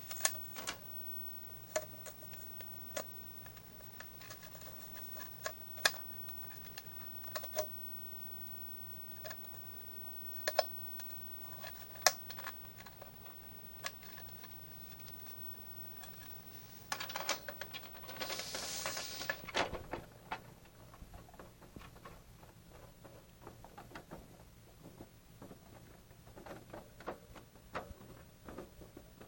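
Hard plastic hamster cage parts clicking and knocking as they are handled and fitted together, with sharp clicks every second or two and a longer rustling scrape a little past the middle.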